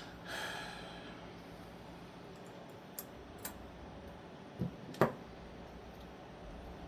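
A few sharp, isolated clicks and taps of small metal folding-knife parts and tools being handled during reassembly, the loudest about five seconds in, after a soft rustle near the start.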